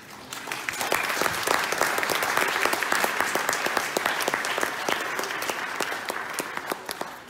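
Audience applauding. The clapping swells in the first second, holds steady, and fades out near the end.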